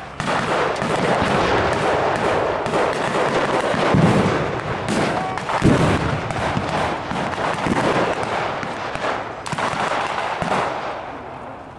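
Reenactment battle gunfire with blanks: a dense, continuous crackle of rifle and machine-gun shots from across the field, with two heavier booms about four and six seconds in.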